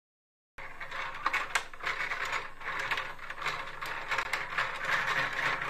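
Toy tabletop foosball game in play: plastic rods sliding and twisting in the frame, with a continuous rattle of quick plastic clicks and clacks as the plastic players knock the ball about. It starts suddenly about half a second in.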